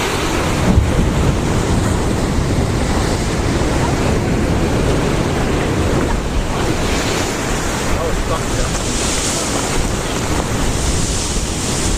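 Heavy surf breaking in a storm, with strong wind buffeting the microphone. It is a loud, steady rumble, and the hiss of breaking water swells up now and then in the second half.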